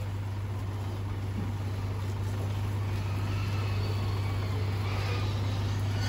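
Livestock truck running with a steady low hum while its hydraulic tail-lift raises a cage of pigs to the upper deck, the hum growing slightly louder. Faint high squeals from the pigs now and then.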